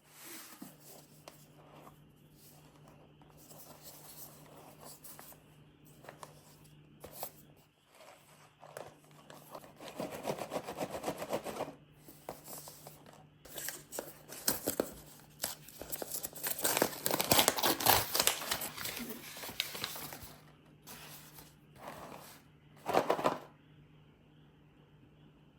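Packaging being handled and torn open by hand: crinkling and tearing in bursts with scattered clicks, building to the loudest stretch a little past the middle and ending with a short sharp rustle near the end.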